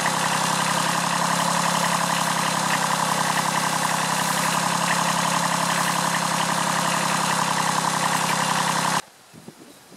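Kubota B7001 compact tractor's diesel engine running steadily, then cutting off abruptly about nine seconds in.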